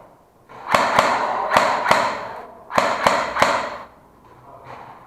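Airsoft guns firing: about seven sharp shots in two quick clusters, each cluster wrapped in a rushing noise, then one faint shot near the end.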